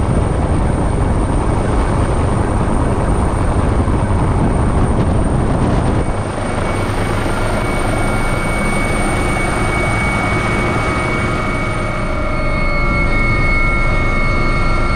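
Search-and-rescue helicopter, a twin-turbine Leonardo AW139, running loud and steady as heard at its open cabin door during a winch lift. About six seconds in the low rumble drops a little, and steady high tones come in over the second half.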